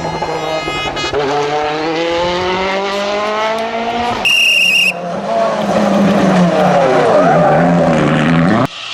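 WRC rally car engine pulling hard, its pitch climbing steadily for about four seconds. A brief high-pitched squeal follows, then the engine revs rise and fall with tyre noise through a corner. The sound cuts off suddenly near the end.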